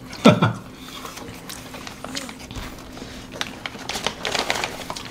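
Close-miked hand-eating sounds: fingers picking at nasi lemak rice on banana leaves and paper wrappers, making small clicks and crinkles with mouth sounds of chewing, busier in the second half. There is one short, sharp sound just after the start.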